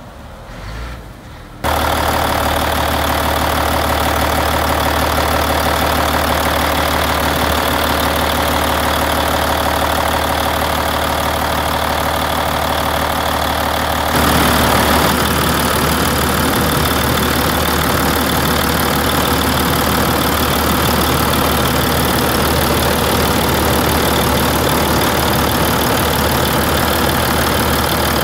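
Volvo L150F wheel loader's six-cylinder diesel engine idling steadily, heard close up at the open engine compartment. It jumps suddenly to a much louder, closer level about two seconds in.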